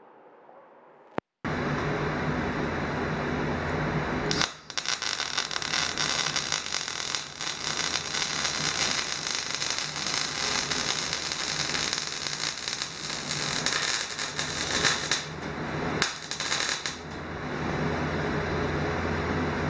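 MIG wire-feed welder laying a continuous bead on thin-walled square steel tubing: the arc crackles and sizzles with fine irregular ticks for about twelve seconds, starting about four seconds in and breaking off briefly near the end before stopping. A steady hum runs before and after the arc.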